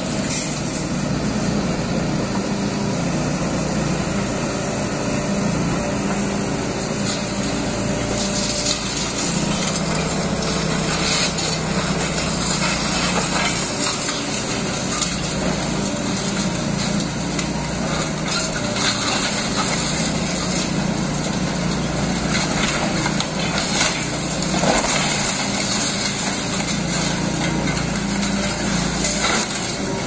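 Hydraulic excavator's diesel engine running steadily under load while its pulverizer attachment crushes a masonry wall, with scattered cracks and crunches of breaking concrete and brick several times.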